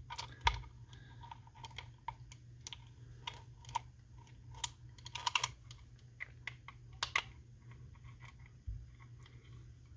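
Faint, irregular small clicks and taps of metal parts as the handle is fitted and screwed onto a Garcia Mitchell 402 spinning reel.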